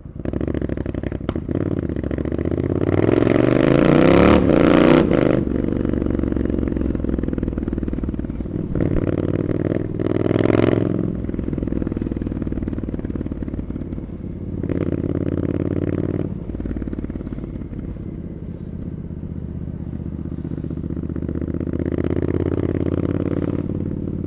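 Triumph Scrambler 900's parallel-twin engine through aftermarket Arrow exhaust pipes, riding in traffic. The revs climb in one long pull about three seconds in, drop off sharply about five seconds in, then rise and fall again in shorter bursts of throttle.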